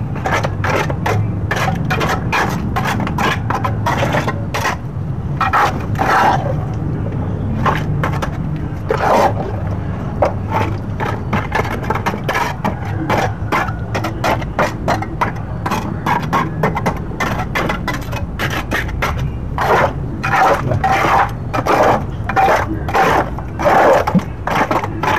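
Trowel scraping and slapping through wet cement mortar, leveling a freshly poured layer in a concrete gutter. It comes as an irregular run of short strokes.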